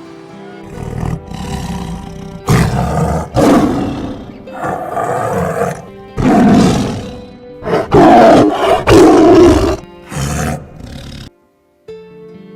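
A big cat roaring: a run of about ten loud rough roars and grunts, the loudest about two-thirds of the way through, stopping abruptly near the end. Background music with steady held tones plays underneath.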